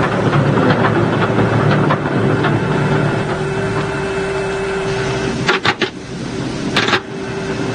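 B-17 bomber's Wright R-1820 Cyclone radial engine running down after its ignition is cut, the propeller slowing toward a stop; its rumble eases after about two and a half seconds while a steady hum goes on. A few sharp clicks come about five and a half and seven seconds in.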